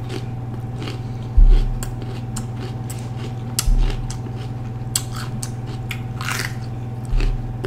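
Close-up chewing and crunching of a raw orange bell pepper: crisp, wet crunches with a fresh bite into the pepper about six seconds in. Three dull low thumps stand out, the loudest sounds, over a steady low hum.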